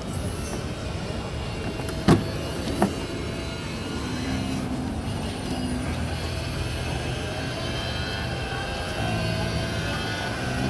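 Two sharp clicks about two seconds in, under a second apart: the pickup's door handle and latch releasing as the door is opened. A steady low hum runs underneath.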